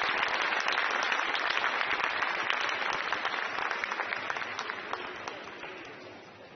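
Arena audience applauding, a dense patter of many hands clapping together, which fades away over the last couple of seconds.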